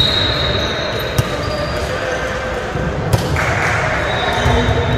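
Volleyballs thumping against hands and the hard gym floor, a few sharp hits, over the echoing chatter of players in a large sports hall.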